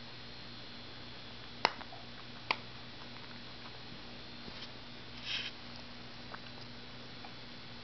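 Small pets at play: two sharp knocks about a second apart, then a brief rustle and a few faint taps, over a steady low hum.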